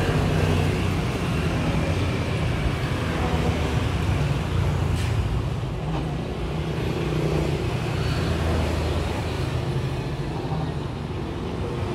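Steady low rumble of road traffic, with a faint click about five seconds in.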